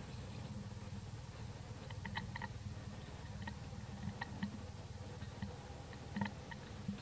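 Faint outdoor ambience: a low steady hum with a scattering of brief, soft clicks.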